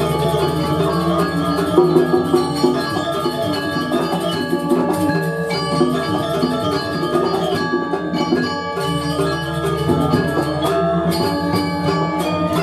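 Balinese gamelan music for a dance: mallet-struck metallophones playing quick, dense patterns over sustained low ringing tones.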